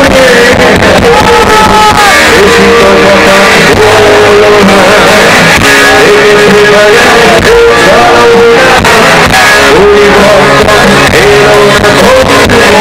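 Live rock band playing loud, with a male vocalist singing held, sliding notes over electric bass and guitar.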